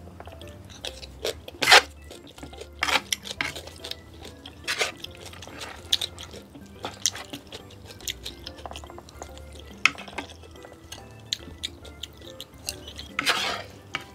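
Wooden chopsticks and a spoon clicking and scraping against a ceramic plate as food is scooped up, in scattered light clicks with two longer, louder scrapes, one near the start and one near the end, over soft background music.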